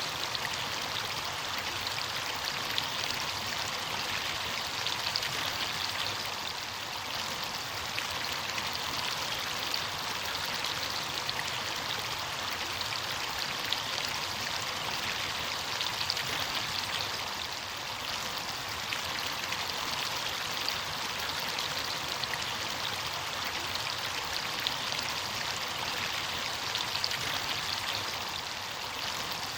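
Running water of a stream or small waterfall, a steady rushing and splashing with small droplet splashes throughout.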